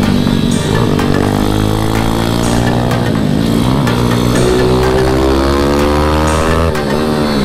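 Pit bike engine heard from onboard at racing speed, revving up and down through corners. The pitch drops sharply about three seconds in and again near the end, then climbs again as the throttle reopens.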